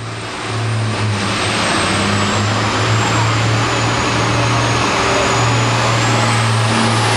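Turbocharged International Harvester diesel pulling tractor revving up and working under load on the pull. It gets louder over the first second and then holds steady, with a thin high whistle that dips slightly and then climbs near the end.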